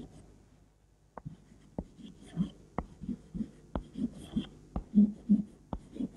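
Chalk writing on a blackboard: a run of short taps and scraping strokes, several a second, starting about a second in as letters are written.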